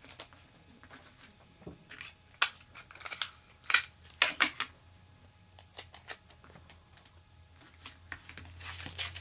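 Plastic comic-book bag and backing board being handled for bagging and boarding: crinkling and sharp crackles of the plastic, in bunches a couple of seconds in and again near the end.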